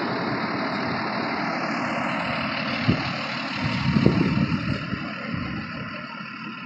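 A vehicle engine idling steadily, with a single knock about three seconds in and a short swell of low rumble a second later.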